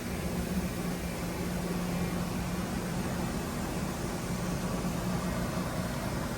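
YCM JC16 CNC vertical machining center running under power, giving a steady machine hum with a low drone and an even hiss.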